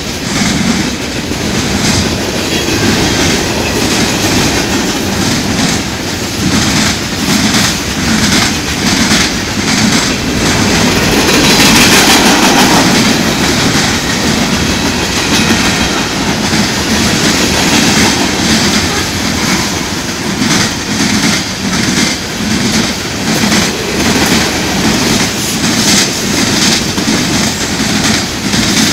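Freight cars of a CSX manifest train rolling past: a steady rumble of steel wheels with rhythmic clicking over rail joints, swelling louder for a couple of seconds about twelve seconds in.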